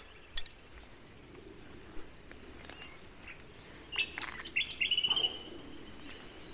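A bird calling: a few quick, high down-slurred chirps followed by a short held whistle about four seconds in, over a few faint clicks earlier on.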